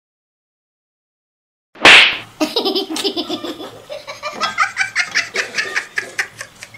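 Silence, then about two seconds in a sudden loud burst of breath and a person laughing in a long run of quick, repeated bursts.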